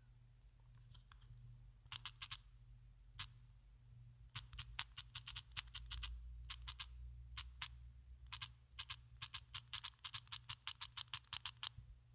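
Keyboard keys clicking as a message is typed, in irregular runs of quick keystrokes with short pauses between, the longest run near the end.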